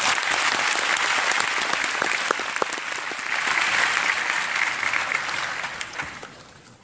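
Concert audience applauding, the clapping dying away over the last second or so.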